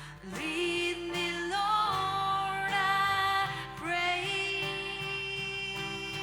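Worship song with singing over instrumental accompaniment: a few long held notes, each sliding up into pitch, over sustained chords.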